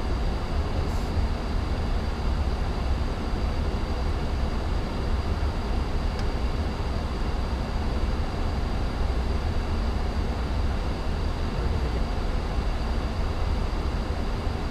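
Steady in-flight cockpit noise of an aircraft: a constant low drone of engines and airflow with a thin, steady high whine above it.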